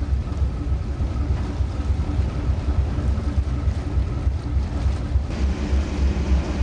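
Steady low rumble and hum of a boat's engine running, with wind buffeting the microphone.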